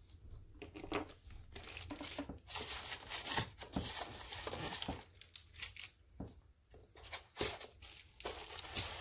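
Clear plastic packaging bags crinkling and rustling as they are handled, in irregular crackles with a few sharp clicks.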